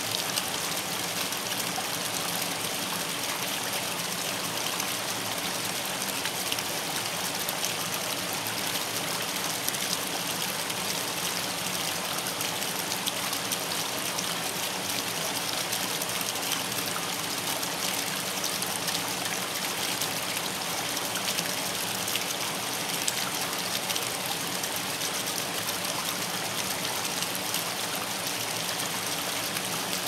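A thin stream of water trickling and splashing steadily down a mossy rock face, with a river flowing behind it.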